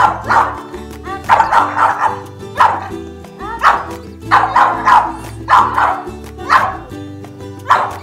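Boxer dog barking repeatedly, roughly once a second, over background music with sustained low notes.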